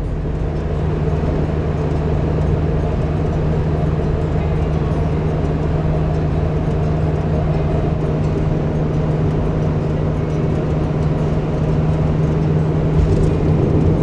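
Inside a Toyota HiAce van cruising at highway speed: a steady rush of road and wind noise with a low engine drone holding one pitch.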